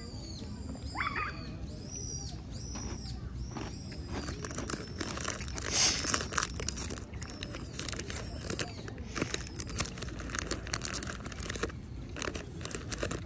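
A bird calls over and over with short arching chirps. From about four seconds in, food packaging crinkles and tears, an irregular crackle that is loudest near the middle.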